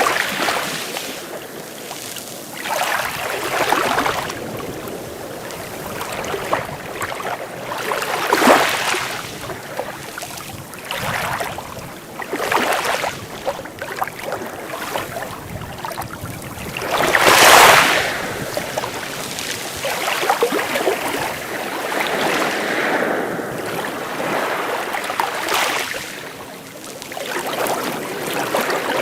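Sea waves washing onto the shore, rising and falling every few seconds, with one louder wave breaking about two-thirds of the way through.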